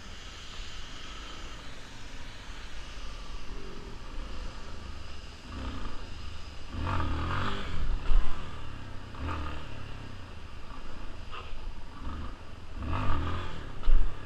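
Yamaha Lander 250's single-cylinder engine revving in repeated bursts, about four times, with two sharp louder thumps around eight seconds in and near the end.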